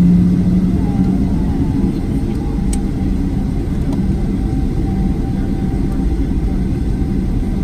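Boeing 737-800's CFM56-7B jet engines running with a steady low rumble.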